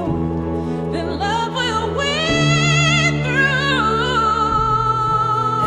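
Pop song: a singer's wordless line over sustained backing chords and bass, ending on a long held note with vibrato.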